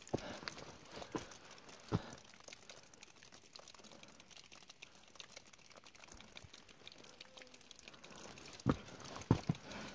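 Footsteps on a dirt forest trail strewn with roots and needles, a few thuds and scuffs with faint rustling between them. The steps stop for several seconds in the middle, then four come close together near the end.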